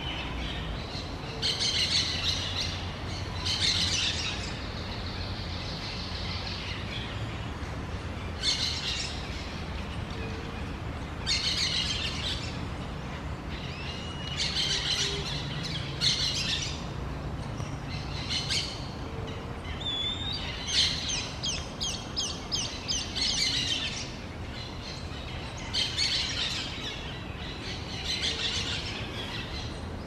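Orange-chinned parakeets calling in short bursts of high-pitched chattering every couple of seconds, with a faster run of quickly repeated notes about two-thirds of the way through.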